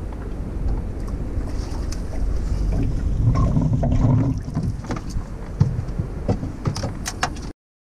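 Wind buffeting the microphone on a small boat on the water, with scattered knocks and clicks. The sound cuts off abruptly near the end.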